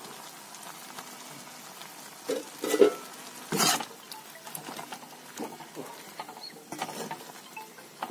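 A slotted spatula stirring silkworm pupae simmering in water in a wok, scraping and knocking against the pan. The loudest clatters come about two and a half and three and a half seconds in, with lighter knocks later, over a steady low hiss of the simmering pot.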